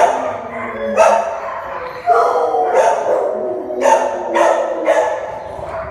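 Dog barking repeatedly, about once a second, with the barks echoing off the hard walls and floor of a shelter kennel.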